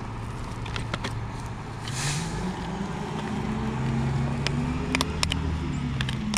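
Vehicle engine running while driving, picking up speed about two seconds in and then holding a higher, steady pitch, with scattered light clicks and rattles.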